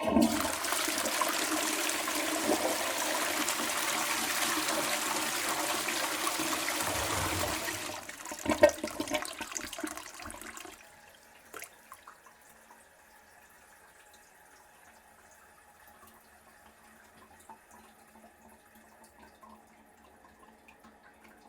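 Toilet flushing: a loud, steady rush of water for about eight seconds, then gurgling as the bowl drains, ending about eleven seconds in. After that, only faint drips and trickling.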